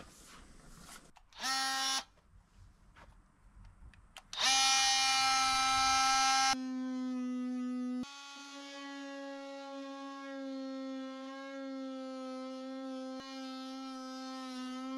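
A small electric motor, such as a power tool's, whining at one steady pitch: a short burst about a second and a half in, then a long steady run from about four and a half seconds in that shifts abruptly twice.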